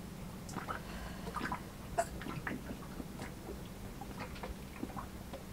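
Water lapping softly, with small irregular plinks and splashes, over a faint steady low hum.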